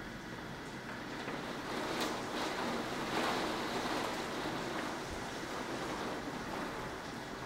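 Thunderstorm wind and rain: a steady rushing hiss that swells louder in a gust about two seconds in, then eases back.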